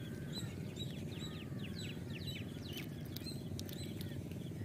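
Small birds chirping in a quick run of short, falling chirps, over a steady low rumble of background noise.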